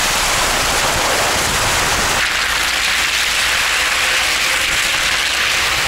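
Steady, loud hiss of wind and wet tyre noise picked up by a camera mounted on the outside of a car driving through a muddy, waterlogged track. About two seconds in, the low rumble under the hiss drops away.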